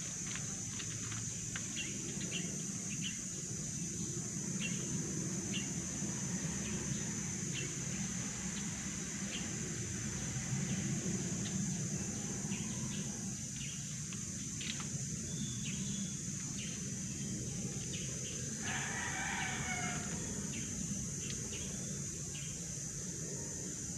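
Outdoor ambience: a steady high-pitched drone with scattered short chirps, and a rooster crowing once, about three-quarters of the way through.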